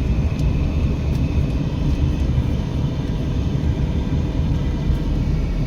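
Steady low drone of a car's engine and tyres, heard from inside the cabin while driving.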